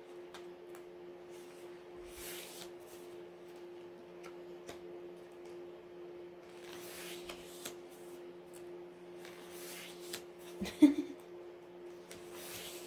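Pages of an album photobook being turned by hand: a soft paper sweep every few seconds, with small paper clicks between, over a steady low hum. One brief, louder sound comes near the end.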